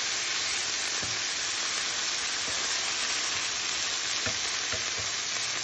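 Cut green beans sizzling in hot oil in a frying pan while they are stirred: a steady frying hiss with a few light knocks of the stirring utensil.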